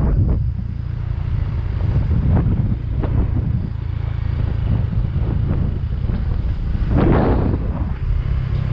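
Motorcycle engine running steadily on the move, under wind buffeting the microphone, with a louder rush of wind about seven seconds in.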